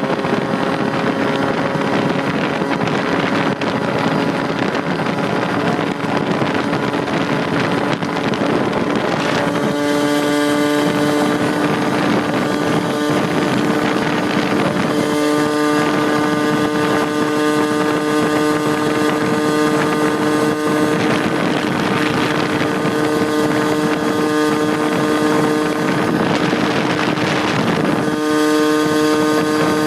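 Honda Urban Express 49cc two-stroke scooter engine with an expansion-chamber pipe running at full throttle and high revs, around the 9,500 rpm the rider thinks he reached. Its tone edges up, then about nine and a half seconds in it steps higher and louder, as the pipe comes on its power band, and holds steady. Wind rushes over the microphone throughout.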